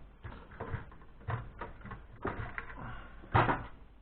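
Small hard plastic and metal computer parts being handled during disassembly: a run of irregular clicks, taps and light knocks, the loudest a sharp knock about three and a half seconds in.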